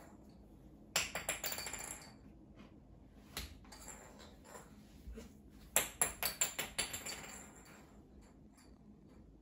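A small acorn is thrown onto a wood-grain floor twice. Each time it clatters in a quick run of bounces as it rolls away, and the second run, about six seconds in, is the louder.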